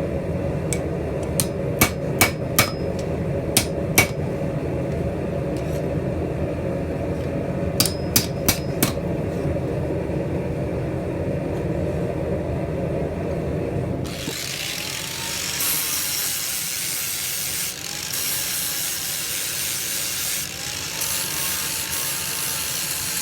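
Hammer blows on steel, a few scattered strikes over a steady low rumble. About fourteen seconds in, this gives way abruptly to a grinder grinding steel tong blanks, its motor whine wavering up and down under load as it cleans off plasma-cut marks.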